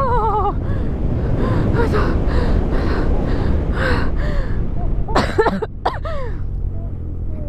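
A woman's frightened squeals and gasps as she rides a Yamaha R6 sport motorcycle: short high wavering cries, with a louder cluster of shrieks about five seconds in. The steady low rumble of the motorcycle and wind runs underneath.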